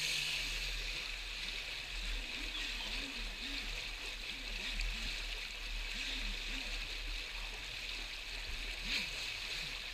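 Fast shallow stream rushing over rocks: a steady hiss of white water.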